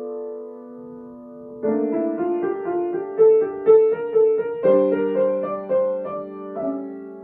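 Solo piano playing a slow, gentle piece: a held chord dies away, then a quick run of single melody notes over chords, with a new chord struck about halfway through and another left ringing near the end.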